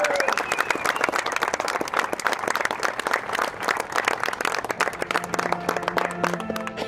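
Crowd applauding, dense irregular clapping with a few cheers at the start. Background music comes in about five seconds in.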